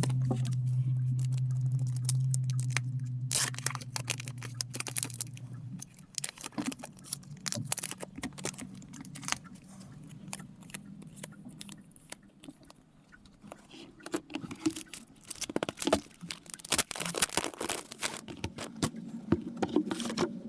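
Hands unwrapping and handling plastic packaging, with irregular crinkling, scraping and tearing sounds that come in bursts. A steady low hum runs underneath for the first six seconds and then stops.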